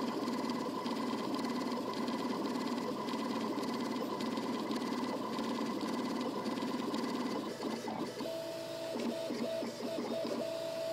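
MakerBot 3D printer with Gen4 electronics printing fast, its stepper motors whirring and chattering through rapid moves. About eight seconds in the sound changes to a steady pitched whine broken by short gaps as the motion pattern changes.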